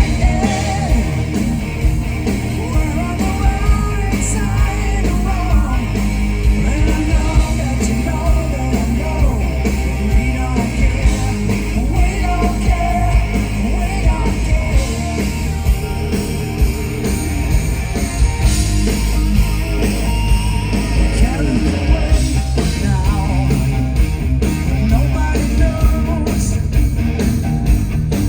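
Hard rock band playing live at full volume: drums keeping a steady beat under electric guitars and bass, with a male lead singer.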